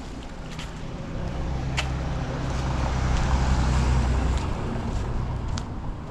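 A motor vehicle driving past, its engine rumble and tyre noise growing louder to a peak a little past halfway, then fading.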